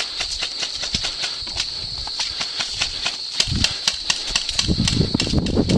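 Steady high insect chirring, typical of crickets, under a rapid string of sharp clicks. The clicks turn sharper and louder about halfway through. Low rustling and thudding from movement builds in the second half.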